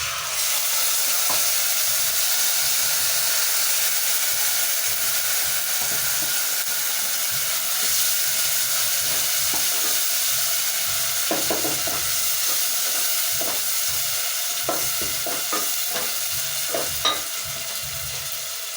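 Mashed tomatoes going into hot oil with frying onions, ginger and garlic in a sufuria, setting off a loud sizzle that starts suddenly and eases slightly toward the end. Past the middle, a spoon knocks against the pot several times as the mixture is stirred.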